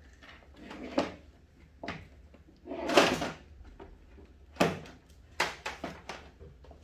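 Hand tools and sockets being handled: scattered sharp metallic clacks, a louder rattle about three seconds in, and a quick run of clicks near the end.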